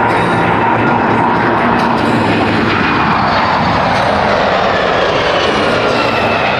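Boeing 747SP's four turbofan jet engines during a fly-by, a loud steady roar with a faint whine that drops in pitch about halfway through as the plane passes.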